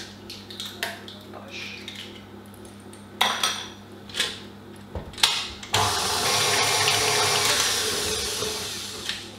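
A few knocks as the head of a KitchenAid tilt-head stand mixer is handled, then the mixer runs for about three and a half seconds, its beater churning egg into creamed butter and sugar, and stops near the end.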